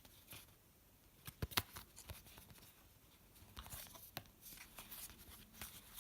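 Trading cards being handled and flicked through by hand: faint, scattered clicks and rustles of card against card, with a few sharper snaps about a second and a half in and again around four seconds.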